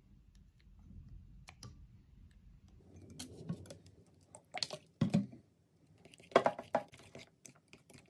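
A plastic spoon stirring Elmer's white glue and borax activator in a glass bowl as the mixture starts to thicken into slime, with sharp clicks and taps of the spoon against the glass, a cluster of them about six and a half seconds in.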